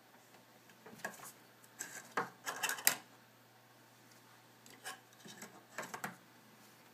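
A cat swatting and scrabbling on a desktop: paper rustling, claws scraping and a plastic desk grommet cap knocked out of its hole with a clatter. The noises come in two flurries, from about a second in to about three seconds in, loudest near the end of that flurry, and again around five to six seconds in.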